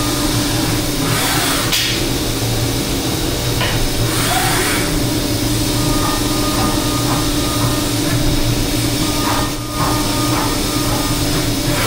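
Haas VF-4SS CNC vertical machining centre, with a TRT70 five-axis rotary table, running a cutting program on a metal part. It gives a steady mechanical hum with several constant tones. There are brief hissing surges about one and a half and four and a half seconds in, and a short drop in level about nine and a half seconds in.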